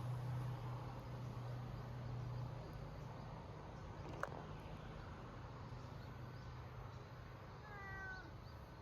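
A black domestic cat meows once, briefly, near the end, the pitch falling. A steady low hum runs underneath and fades after the first few seconds, and a single click sounds about four seconds in.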